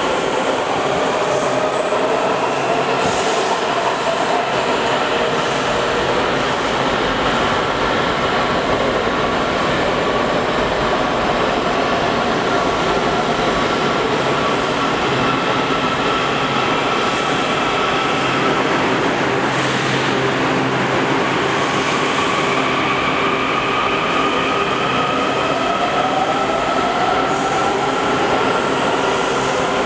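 Kawasaki 7000-series subway trains in an underground station, one pulling out and another pulling in. Their electric traction motors whine, gliding up and down in pitch over steady wheel and rail noise.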